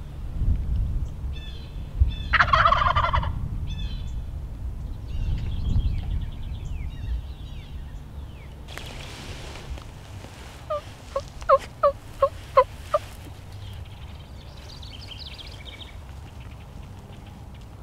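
A wild turkey gobbles once, loudly, about two seconds in, with small songbirds chirping around it. About eleven seconds in comes a run of about eight short, sharp calls.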